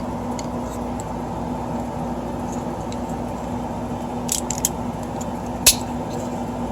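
Steady fan hum with a low tone under it. Over the hum come a few sharp plastic clicks, the loudest near the end, from a 3D-printed PLA+ parachute clip being handled.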